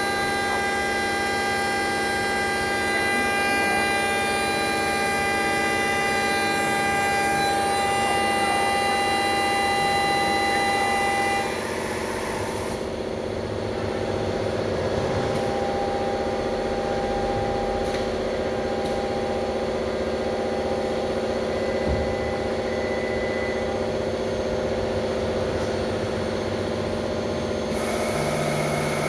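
Euromatec CNC lock-milling machine running, milling a thermal-break aluminium profile: a steady spindle whine made of several steady tones over a high hiss. About twelve seconds in the hiss drops away and the sound eases a little, then it comes back near the end.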